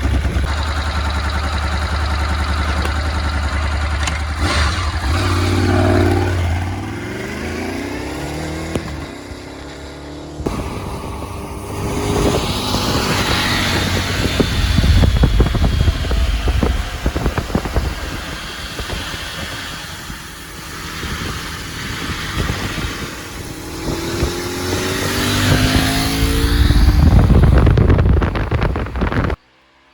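1986 Honda VFR750F's V4 engine through its stock exhaust, revving up and down across several edited shots. The revs climb about five seconds in and fall away, the sound cuts sharply near ten seconds, and the revs climb again near the end before the sound stops abruptly.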